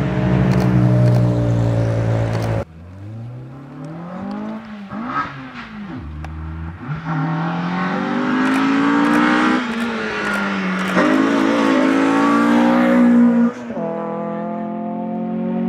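Small front-wheel-drive hatchback race car engines at high revs, the pitch rising and falling repeatedly as the cars accelerate and brake through a cone slalom course. A rough hissing noise over the engine is strongest in the later part. The sound cuts off abruptly about two and a half seconds in and again near the end.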